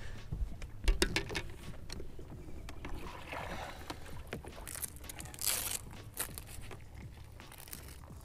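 Handling noise on a boat deck: a knock about a second in, then small clicks and scrapes, with water splashing in a minnow bucket as a hand reaches in for a live minnow.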